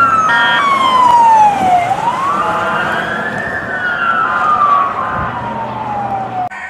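Emergency vehicle siren wailing: a slow fall in pitch, a rise again about two seconds in, then another slow fall. A few short blasts of a steady tone break in over it. It stops suddenly near the end.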